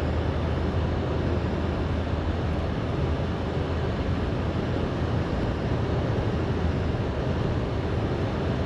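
Steady road noise inside a moving vehicle: a low engine drone and the hiss of tyres on a snow-covered road.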